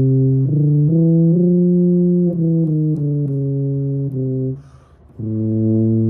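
Tuba played solo: an improvised line of held notes that step up and down every half second or so in the instrument's middle register. Near the end the playing stops briefly for a quick breath, then the next phrase starts.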